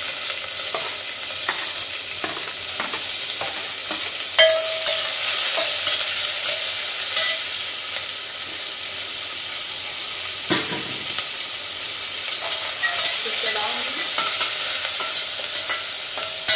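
Onion sizzling and frying in hot oil in a pressure cooker, steady throughout, with a spoon stirring and now and then clicking and scraping against the pot.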